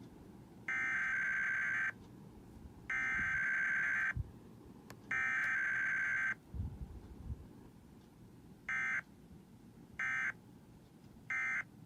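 Emergency Alert System SAME digital data bursts of a required weekly test. The header is sent three times, each burst about a second long with a second's pause between. Then the end-of-message code follows as three short bursts.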